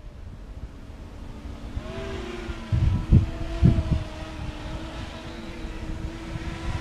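Racing quadcopter with Cobra 2204 2300kv motors and 5-inch bull-nose propellers flying fast toward the microphone: a steady high buzz that grows louder. A few low thumps of wind on the microphone come about three to four seconds in.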